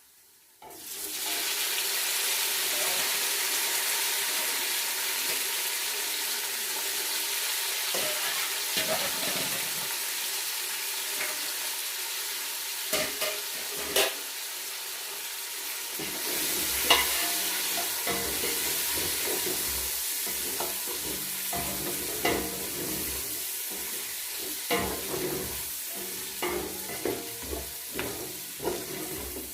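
Onions frying in oil in a cooking pot, sizzling steadily while a spoon stirs them, scraping and knocking against the pot. The knocks come more often in the second half.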